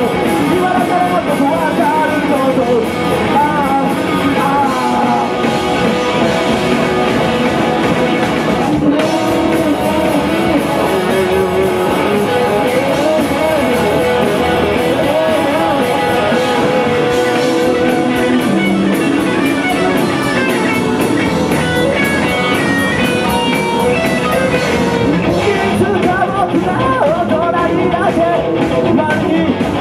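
A rock band playing a song, with electric guitar to the fore over a full band.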